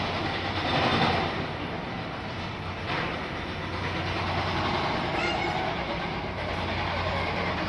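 Steady mechanical rumble with a low hum, with a single knock about three seconds in.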